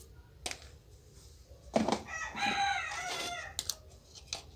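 A rooster crowing once, about two seconds in, for about a second and a half. A few light clicks come before and after it.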